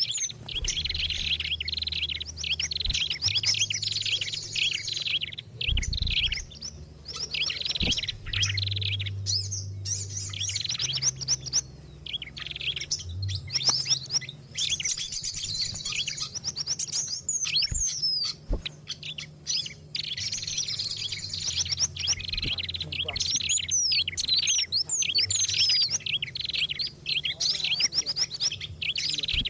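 Busy, agitated chirping and trilling of several small songbirds overlapping almost without pause: a compiled bird-lure call recording of the 'ribut' (agitated) kind, mixing prinia, fantail and other small-bird calls. A low hum runs underneath.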